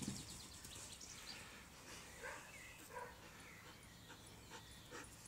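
Quiet outdoor ambience with a few faint, short animal calls about two to three seconds in.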